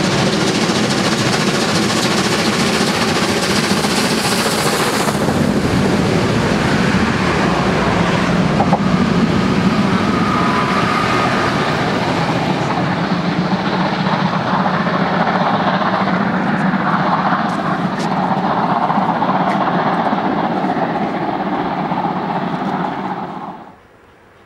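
Steam locomotive working hard and its passenger train passing close beneath: a loud, dense, steady rush of exhaust and rolling noise. It cuts off suddenly near the end.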